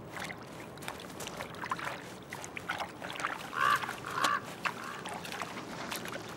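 Waterfowl calling with short honks, three in quick succession a bit past halfway, over a steady crackle of rustling and splashing from a grizzly bear foraging through wet, marshy grass.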